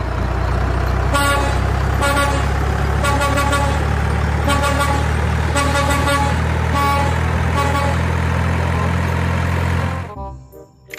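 Semi-truck's engine running with a steady low rumble, sounding a series of short air-horn toots over it; everything cuts off suddenly about ten seconds in.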